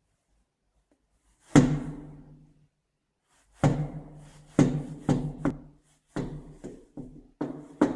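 Heavy knocking on a door. One loud bang comes about a second and a half in, then a run of bangs starts about two seconds later, at times two or three a second, each followed by a low, booming ring from the door.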